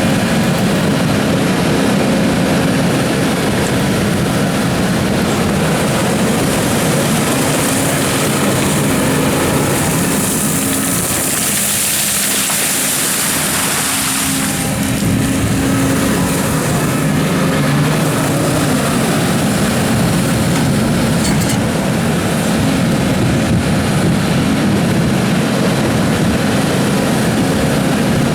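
Doosan DX300 excavator's diesel engine running steadily under digging load, with hydraulic and working noise. A high hiss swells for several seconds in the middle.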